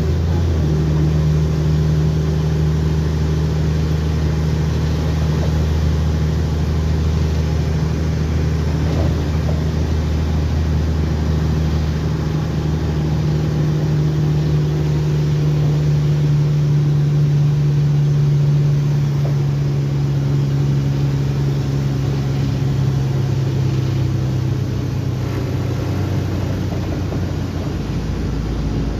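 Diesel engine of a Mercedes-Benz O-500M bus with a Voith automatic gearbox, running with a steady, even drone that changes note and eases off near the end.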